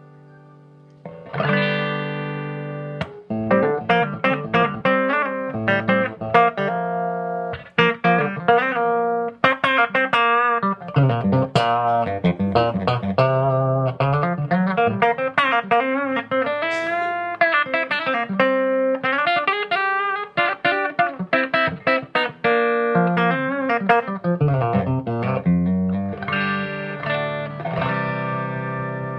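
J Craft Vintage Series Telecaster-style electric guitar played through an amp. A chord rings out about a second in, then come quick picked single-note phrases with several string bends, and it ends on a ringing, sustained chord.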